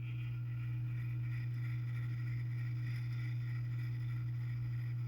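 A steady low hum, with faint high tones held above it and no ticks or strikes.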